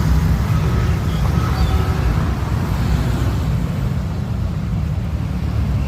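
City street traffic: a steady low rumble of passing cars and motorbikes.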